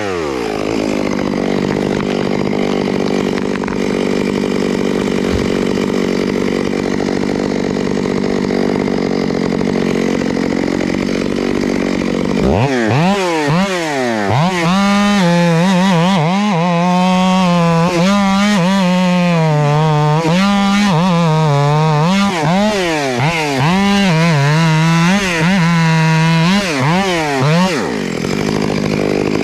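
Chainsaw dropping to idle and idling steadily, then about twelve seconds in revved up and cutting, its pitch rising and sagging again and again as the chain loads in the wood, before falling back to idle near the end.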